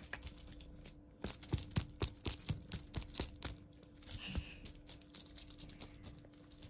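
A run of sharp clicks or taps, about three or four a second, over a low steady hum; the clicks are loudest in the first half and come back more quietly later.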